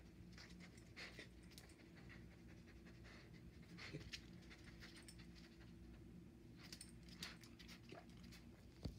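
A dog panting and sniffing faintly as it noses along a wall, with a few light ticks, over a low steady hum.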